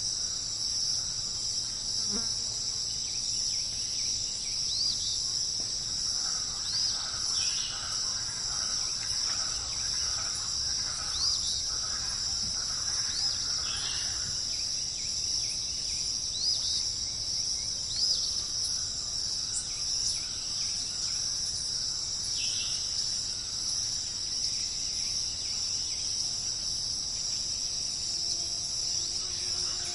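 Steady high-pitched insect chorus, a continuous cricket-like trill, with short bird chirps every couple of seconds over it.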